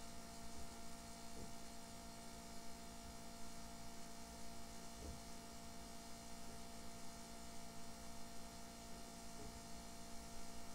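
Faint steady electrical hum with a light hiss, and a few faint clicks.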